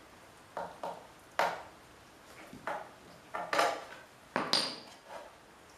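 Hammer tapping nails into the thin wooden boards of a finch perch. About nine irregular sharp knocks, a few of them with a brief metallic ring.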